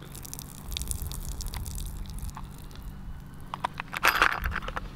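Liquid pouring from a plastic parts tray and splattering onto grass. About three and a half seconds in, a burst of clinking and rattling follows: the small metal parts of a Stanley Bedrock No. 608 plane (screws, rod, brass adjuster nut) shifting in the plastic tray. The rattling is the loudest part.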